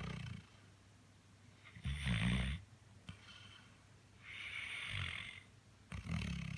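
Chocolate Labrador Retriever snoring in its sleep: low-pitched snores with breathy exhales between them. One comes at the start, a louder one about two seconds in, a longer breathy one around four to five seconds, and another near the end.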